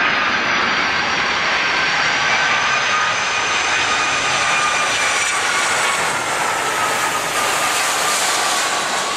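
Boeing 757's twin jet engines running on landing: a loud, steady jet roar with a high whine whose pitch falls slowly.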